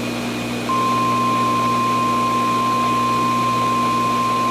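A single steady emergency alert tone, just above 1 kHz, comes in about a second in and holds at one pitch, over a constant low hum and hiss.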